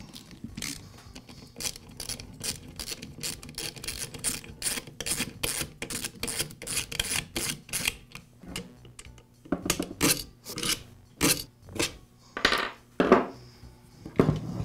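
Hand screwdriver backing screws out of a chainsaw's plastic engine base: a run of quick rasping clicks and scrapes, then several louder knocks in the last few seconds as the loosened parts are handled.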